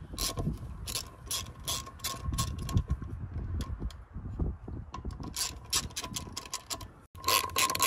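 Hand socket ratchet clicking in quick runs as it is swung back and forth on a nut.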